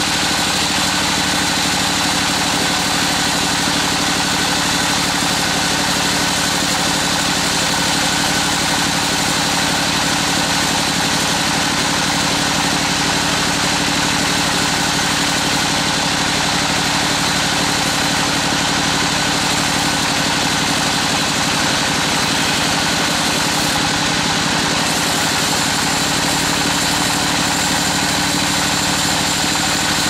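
Large sawmill band saw running steadily, its blade sawing through a very large log. It makes an unchanging drone with several steady hum tones.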